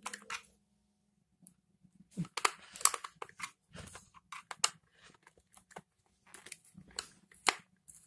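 Screwdriver clicking and scraping in a screw of a handheld vacuum cleaner's housing, with the casing knocking and creaking as it is turned in the hand. Quiet for about the first second and a half, then irregular clicks and scrapes.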